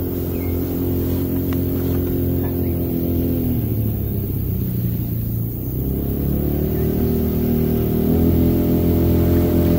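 An engine running steadily. Its pitch sinks about four seconds in and climbs back a couple of seconds later.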